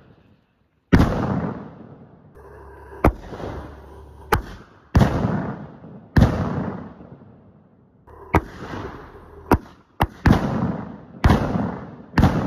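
Aerial salute fireworks bursting overhead: a string of about ten sharp, loud bangs at uneven intervals, each followed by a rolling echo.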